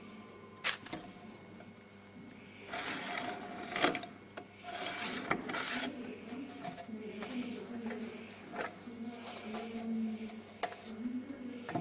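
Pencil drawn along a metal straightedge on a block of timber: two longer scratching strokes about three and five seconds in, then softer rubbing and light handling of the straightedge. A sharp click comes just before the first stroke.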